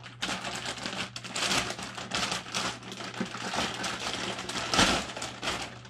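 Plastic wrapping and packing paper crinkling and rustling as parts are unpacked by hand from a cardboard box, a dense run of irregular crackles.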